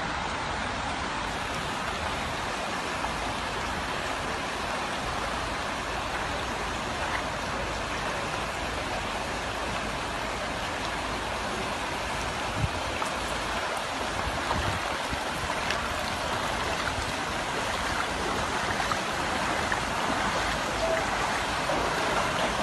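Steady rushing of water: an even, unbroken hiss that grows a little louder near the end.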